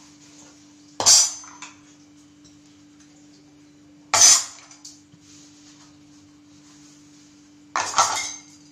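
Glass lid on a pot of boiling sambar rattling and clinking against the pot rim as steam lifts it, three brief clattering bursts about three and a half seconds apart, over a steady low hum.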